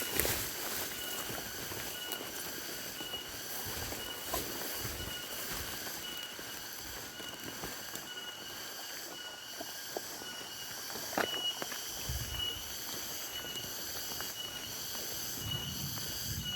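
Insects buzzing and trilling in steady high-pitched tones, one of them pulsing about twice a second, over a faint even hiss, with a few scattered clicks.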